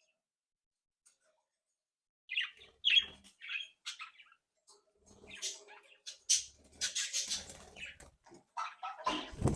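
Budgerigars chirping in short calls mixed with wing-flapping and scuffling noise, starting about two seconds in; the noise is densest from about six seconds on.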